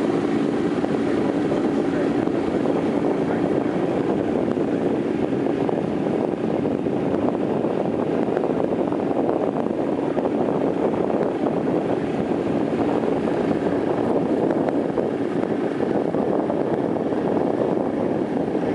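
Boat engine running steadily with a low hum, with wind noise on the microphone.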